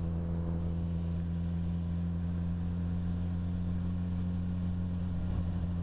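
Suzuki GSX-S1000's inline-four engine running at a steady cruise while the motorcycle is ridden, heard from the rider's helmet as an even, low drone with no change in pitch.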